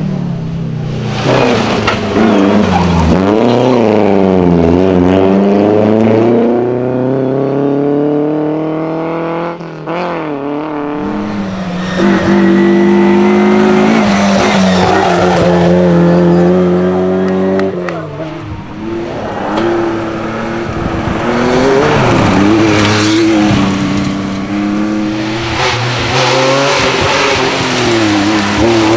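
Historic rally cars, among them a Ford Escort Mk2 and a Porsche 911, driven flat out one after another: engines revving hard, the pitch falling on lifts and gear changes and climbing again as they accelerate away.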